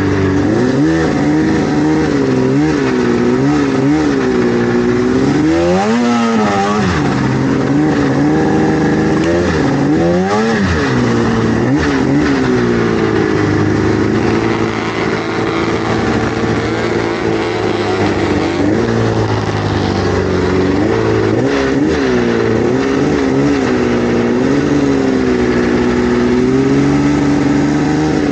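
Vintage snowmobile's two-stroke engine running under way, its pitch rising and falling with the throttle, with two quick sharp revs about six and ten seconds in.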